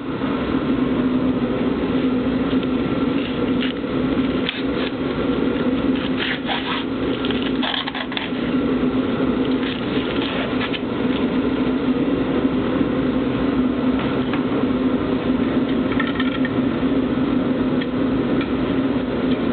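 A steady mechanical hum, with scattered bursts of crackling and rustling as wrapping is peeled off carbon-fibre parts, mostly in the first half.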